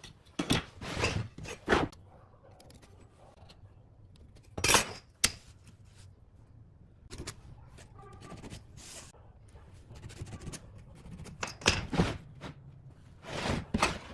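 Pencil drawing lines along a steel straightedge across a pine board, scratching in short strokes, with a few sharp clicks and knocks as the metal rule and pencil are handled on the board.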